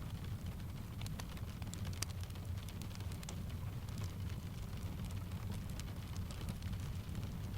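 Layered ambience of rain tapping on a window and a wood fire crackling in a fireplace: a steady low rumble under frequent sharp clicks and pops, the sharpest about two seconds in.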